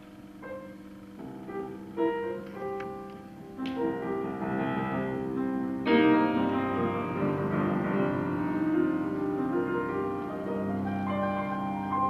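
Two grand pianos playing jazz as a duo. It starts quietly with sparse notes and chords over a low ringing sustain, then builds to a loud full chord about six seconds in, followed by dense playing.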